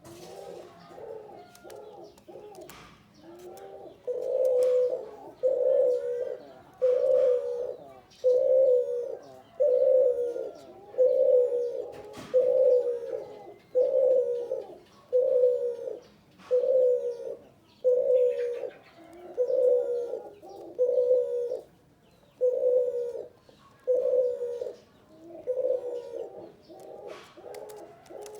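Male spotted dove (tekukur) cooing over and over in a steady series of low coos, about one a second. The coos are softer for the first few seconds, then louder, and soften again shortly before the end.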